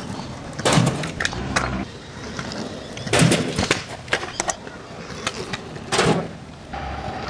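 Freestyle scooter wheels rolling and rattling on pavement, broken by sharp knocks and clacks of the deck and wheels hitting, the loudest about three seconds in and about six seconds in as the scooter rides up and launches off a small ramp.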